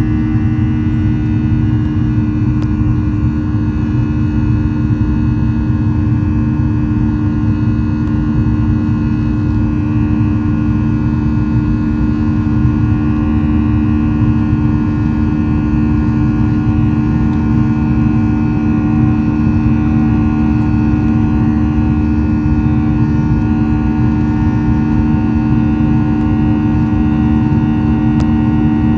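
Boeing 737-800 with CFM56-7B turbofan engines, a loud steady drone made of a deep rumble and two strong low hums, with fainter higher whining tones above.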